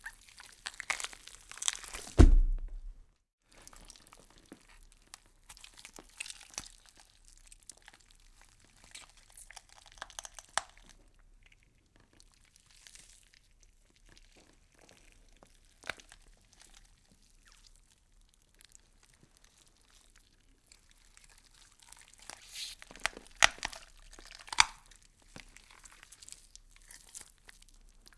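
Gory horror sound effect of irregular wet crunching and tearing, with a heavy deep boom that drops in pitch about two seconds in, and a louder run of crunches near the end.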